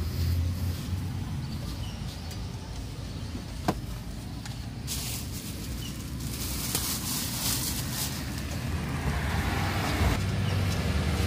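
Roadside traffic: a steady rumble of passing cars and motorbikes, with a hiss swelling in the middle and a louder vehicle approaching near the end. There is one sharp click about a third of the way in.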